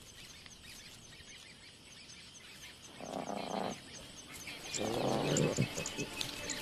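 Lions giving two short, rough calls, about three and five seconds in, each under a second long, over faint high chirping that repeats a few times a second.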